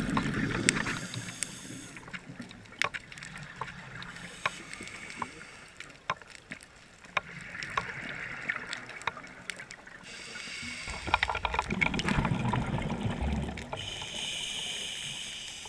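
Scuba regulator breathing heard underwater: a rumbling bubble burst of an exhale near the start and again about eleven seconds in, with hissing inhales between, and scattered sharp clicks throughout.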